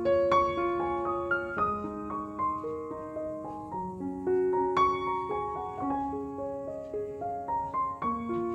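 Background piano music: a gentle melody of single held notes over soft accompaniment.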